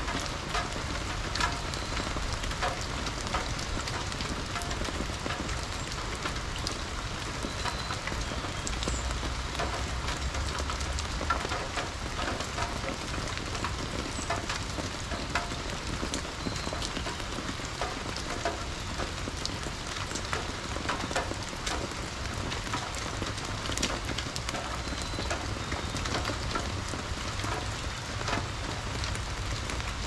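Steady rain falling on wet leaves and ground: an even patter of many small drops, with no let-up.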